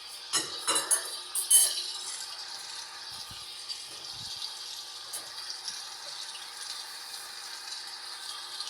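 LG washing machine running a heavy-load wash cycle: water sloshing in the drum over a steady motor hum, with a few sharp clinks and knocks in the first couple of seconds.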